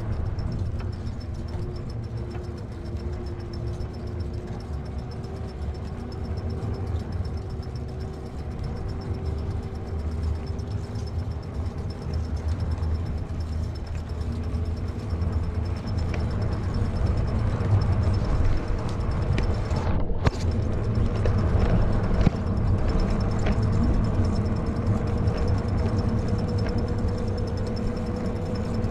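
Wind buffeting the microphone and tyre rumble from an e-bike riding along a paved road, a steady low rumble throughout. A faint steady whine rises a little in pitch over the second half.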